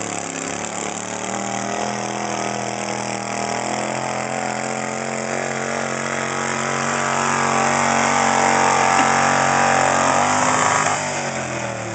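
Modified garden pulling tractor's engine running steadily under load as it drags a weight-transfer sled, growing louder as it passes close by, then dropping in pitch and fading about eleven seconds in as the throttle comes off.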